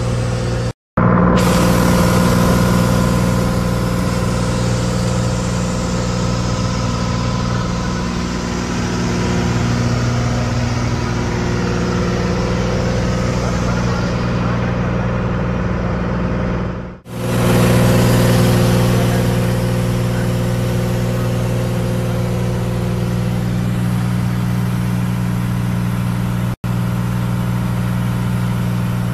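Light aircraft's piston engine and propeller droning steadily in the cockpit, holding a constant pitch. The sound cuts out briefly about a second in, dips sharply about two-thirds of the way through, and drops out for an instant near the end.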